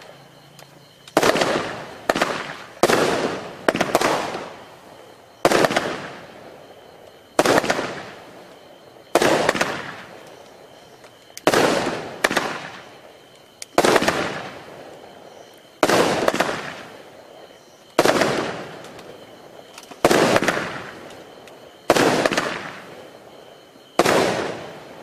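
Wolff 'Fire Surfer' 21-shot firework cake firing. Its shells go off with a sharp bang every one to two seconds, about fifteen in all, and each bang trails off slowly.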